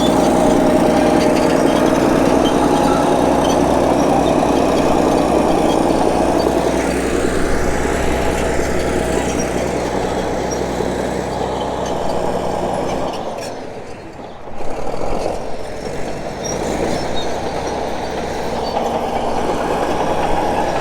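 Caterpillar D8H bulldozer's diesel engine running steadily. It drops off for about a second two-thirds of the way through, then picks back up.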